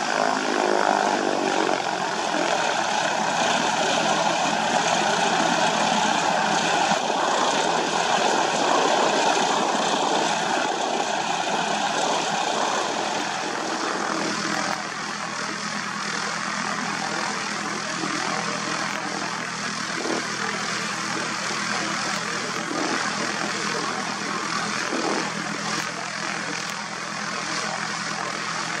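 Light aircraft's propeller engine running steadily, a drone at a fixed pitch. It eases somewhat about halfway through.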